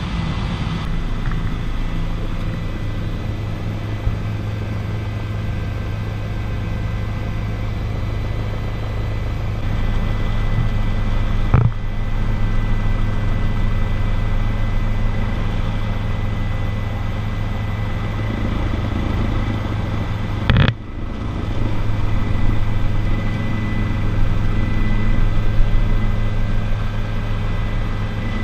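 Steady drone of a helicopter's rotor and engine heard from inside the cabin, with a thin steady high whine above the low hum. Two brief clicks interrupt it, near the middle and about two-thirds of the way through.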